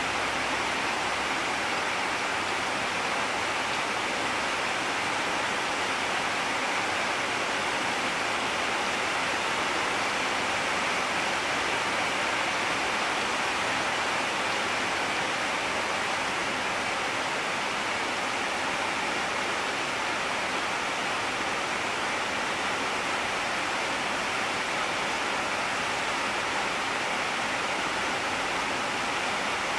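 Steady, even hiss like rushing water or a fan, unchanging throughout, with no other sound standing out.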